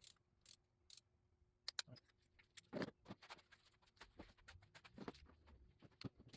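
Faint, irregular clicks and clinks of hand tools and engine parts being handled during spark plug work, about a dozen spread out with gaps between, over a faint steady hum.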